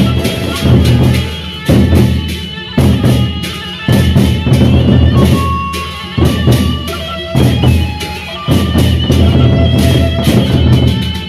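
Sasak gendang beleq ensemble: large double-headed barrel drums beaten with sticks in a driving, interlocking rhythm that comes in short phrases of about a second each. A suling flute melody sounds above the drums.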